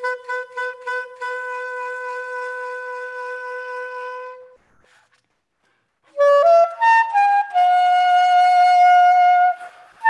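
Soprano saxophone playing a slow solo melody: a long held note that fades out, a pause of about a second and a half, then a short rising run of notes into a higher long held note.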